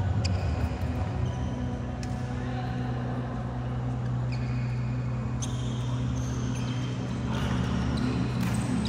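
Badminton rally: rackets striking the shuttlecock as several sharp taps a second or more apart, with short squeaks of court shoes on the floor, over a steady low hum.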